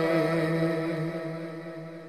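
A male naat reciter's unaccompanied voice holding one long sung note with a slight waver, fading away toward the end as the line closes.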